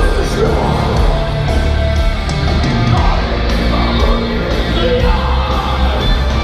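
Heavy metal music with yelled vocals: a black metal band playing live on the festival stage.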